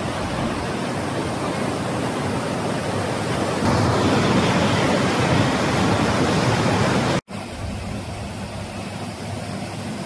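White-water mountain river rushing over rocks: a dense, steady rush of water that grows louder about four seconds in. A cut about seven seconds in drops it to a quieter, steady water sound.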